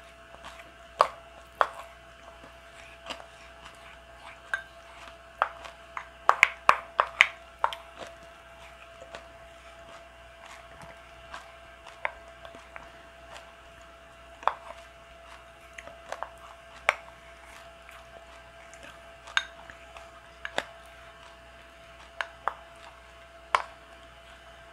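Wooden chopsticks scraping and clinking against a small ceramic bowl as the last bits of porridge are gathered. The light clicks come one at a time, with a quick run of them about six to eight seconds in.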